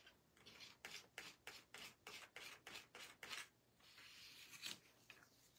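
Faint scraping of a scraper across a metal nail-stamping plate, pulling sticky stamping polish over the design: about nine quick strokes, roughly three a second, then one longer scrape about four seconds in.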